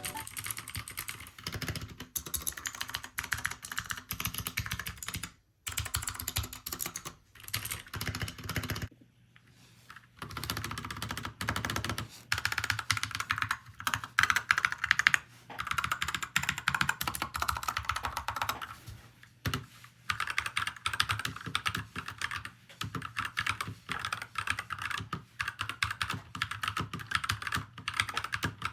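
Typing on a Royal Kludge RK61 mechanical keyboard fitted with tactile Holy Panda switches: a fast run of keystroke clacks, broken by two brief pauses about five and nine seconds in.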